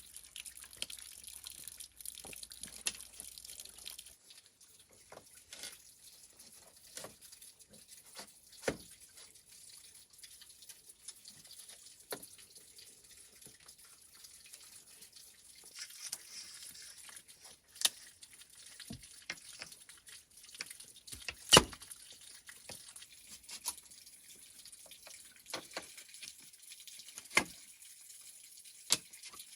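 Water dripping at a kitchen sink, with irregular light clicks and knocks; the loudest knock comes about two-thirds of the way through.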